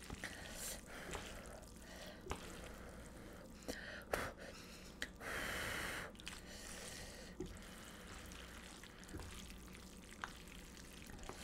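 Creamy carbonara spaghetti being tossed with chopsticks and a wooden spoon: soft wet sounds of the sauced noodles and light clicks of the utensils against the pot. About five seconds in comes one long puff of breath, blowing on the lifted noodles to cool them.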